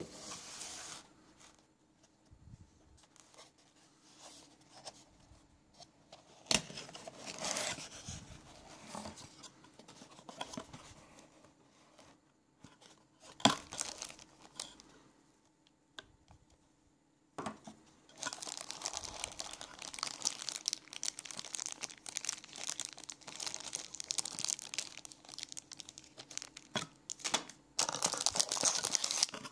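A cardboard box being opened and handled, with scattered rustles and a few sharp knocks, then continuous crinkling of a plastic bag being handled from about two-thirds of the way in.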